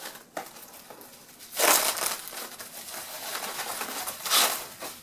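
Sheets of small plastic bubble wrap rustling and crinkling as they are handled, with two louder bursts, one about a second and a half in and one just after four seconds.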